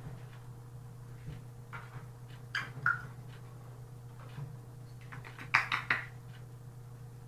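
Young African grey parrot moving about its wire cage: scattered clicks and taps, with two short clusters of louder clicking and brief sharp sounds, about three seconds in and again near six seconds, over a steady low hum.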